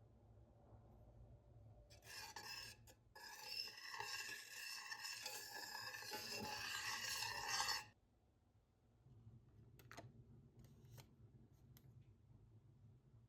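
A steady scratchy noise that starts about two seconds in and cuts off suddenly about six seconds later, followed by a few faint clicks.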